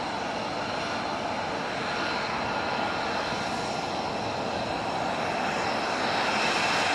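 F-35B Lightning II jets' turbofan engines running on the flight line, a steady jet noise with a high whine. It grows a little louder near the end as a jet taxis close by.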